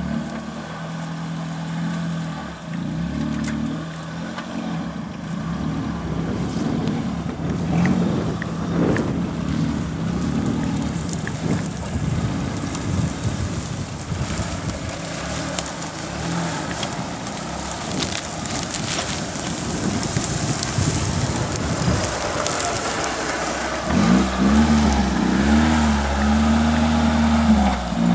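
Suzuki Samurai 4x4 engine pulling at low speed through tall grass and brush, with vegetation rustling and crackling against the body and tyres. Near the end the engine revs up and down several times.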